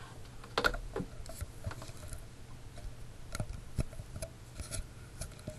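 Irregular light clicks and taps, about eight spread unevenly over several seconds, over a faint steady low hum.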